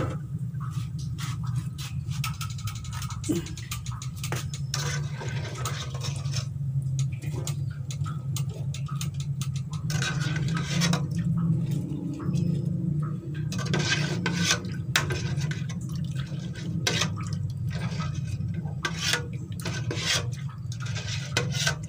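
A metal skimmer and wire strainer clinking and scraping against a steel pot as onion crackers are stirred and scooped out of hot frying oil, with a steady low hum underneath.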